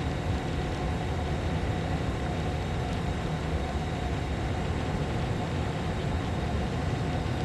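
Steady low hum and rush of air inside a pickup truck's cab, with a faint constant tone and no distinct events.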